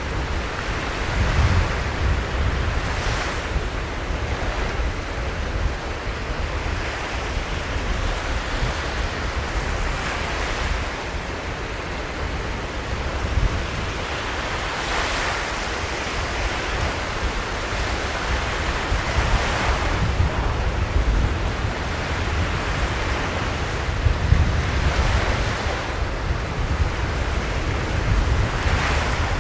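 Surf breaking on the shore, the wash swelling and falling away every few seconds, with wind rumbling on the microphone.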